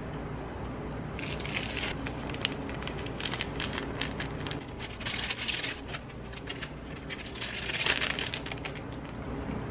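A small plastic seasoning sachet crinkling as it is shaken and squeezed to sprinkle out seaweed and sesame flakes. The rustling comes in irregular bursts and is loudest about eight seconds in.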